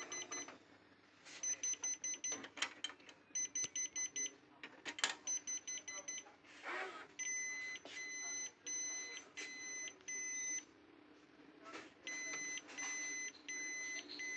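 Ricoh multifunction copier's electronic beeper sounding. First come clusters of quick short beeps, then from about seven seconds in, runs of evenly spaced half-second beeps like an alert tone, with a few sharp clicks between them.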